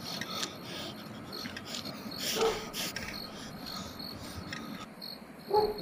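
Crickets chirping over a steady background hiss, with a couple of short noisy bursts about two and a half seconds in and a brief animal call near the end.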